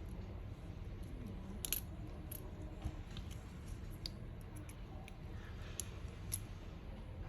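Scattered faint clicks and taps of a repair tool against a smartphone's parts as its glued-in motherboard is eased up, over a steady low hum.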